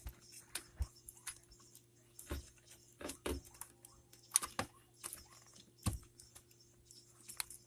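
Scattered light clicks, taps and knocks of small hard parts being handled, as a third brake light housing is lined up against the truck cab and its screws readied, over a faint steady hum.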